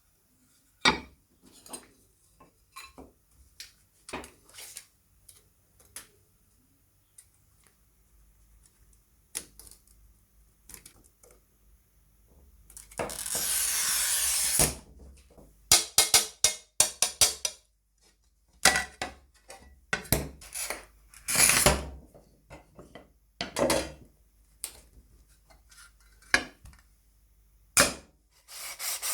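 Workshop handling sounds: scattered clicks and knocks of tools and parts, a continuous rushing noise for about two seconds near the middle, and several runs of quick scraping strokes.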